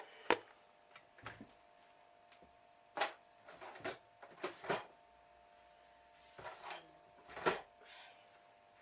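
A few scattered knocks and clicks of craft tools and materials being handled and set down on a work table, over a faint steady hum.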